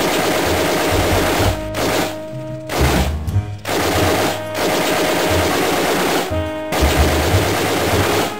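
Long bursts of rapid automatic gunfire, a few seconds each, broken by short pauses.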